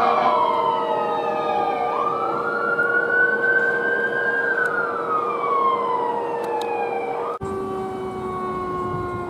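Fire apparatus sirens on units responding to a call: an electronic wail makes one slow rise and fall over about five seconds, over a steady tone. About seven seconds in, the sound changes abruptly to steady tones that slowly fall in pitch.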